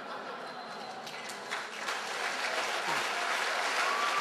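Large audience applauding after a speaker's punchline, the clapping growing steadily louder.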